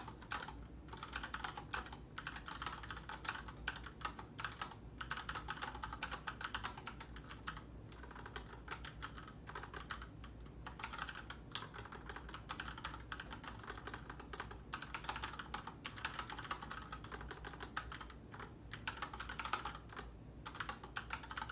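Fast, steady typing on a typewriter-style computer keyboard with raised keys: a dense run of key clicks broken by a few short pauses.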